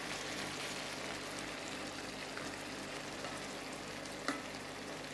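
Freshly added wild boletes frying with onion and tomatoes in a pan: a steady sizzle while a wooden spatula stirs them, with one short knock about four seconds in.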